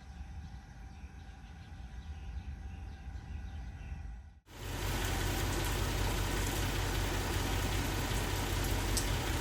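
A low steady outdoor rumble with faint bird chirps. About four and a half seconds in it cuts abruptly to a louder, steady hiss of heavy rain.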